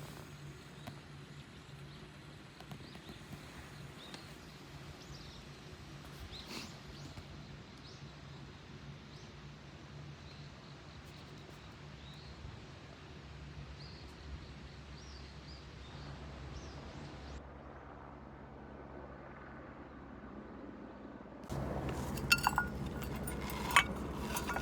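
Quiet outdoor ambience with a steady low hum and faint, scattered bird chirps. Near the end it turns louder, with rustling and a few sharp clinks.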